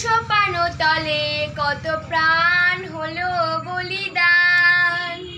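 A young girl singing solo, holding long notes, the longest about four seconds in.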